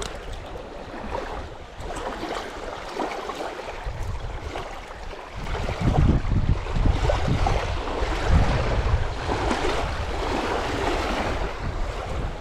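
Wind buffeting the phone's microphone, with small waves lapping at the water's edge. The rumbling gusts grow stronger about halfway through.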